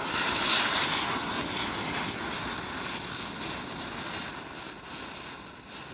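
Two ground spinner firecrackers (chakri) burning on the ground with a steady rushing hiss of sparks, loudest in the first second and slowly fading. One of the two is not spinning properly.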